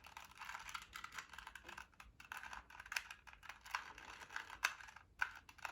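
A 2x2 Rubik's Cube being turned by hand: a rapid, irregular run of small plastic clicks and rattles as its layers snap round.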